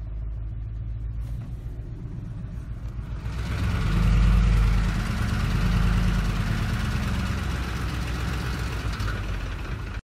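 Ford 5.4-litre three-valve V8 running in gear, then brought up under light throttle about three seconds in and held there, louder, with a rattle-type knocking from the cam phasers: phaser oscillation, the phasers jumping around on low, erratic oil pressure once the VCT solenoids unlock them, heard most around 900 to 1200 rpm.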